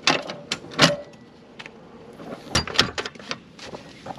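Camper trailer's steel drop-down stabiliser leg being swung down and set, giving a handful of sharp clanks and clicks: two near the start, a pair a little over halfway, then lighter clicks.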